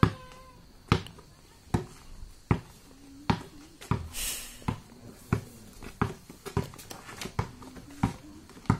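Basketball dribbled steadily on hard-packed dirt, one bounce about every three quarters of a second, coming a little faster in the second half. A brief scraping hiss about four seconds in.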